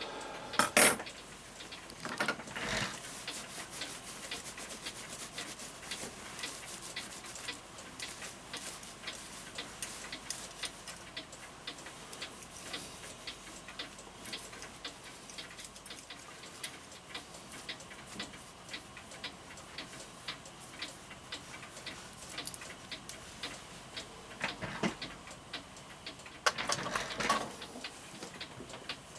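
Florenz Kroeber mantel clock movement ticking steadily after repair. There are a few louder knocks and rattles about a second in, again around two seconds in, and near the end.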